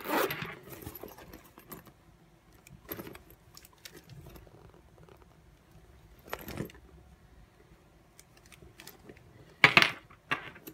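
A small faux-leather backpack being handled: the bag rustles and its metal zipper pulls and clasp hardware clink, in a few short separate bursts with quiet in between.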